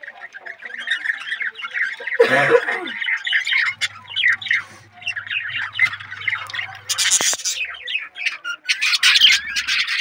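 Budgerigars chirping and chattering in a dense, continuous stream of short squawky calls, with louder, harsher bursts about two seconds in and again about seven seconds in.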